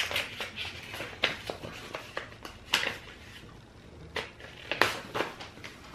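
Paper card and envelope being handled: soft rustling and crinkling, with a few sharper crackles scattered through.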